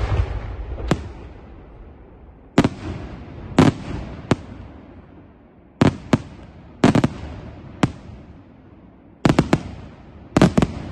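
Aerial firework shells bursting overhead: an irregular string of sharp bangs, some single and some in quick clusters of two or three, each trailing off in echo.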